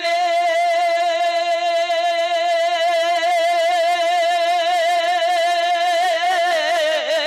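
A man's voice holding one long sung note with a steady vibrato during a naat recitation. Near the end the note wavers and slides down.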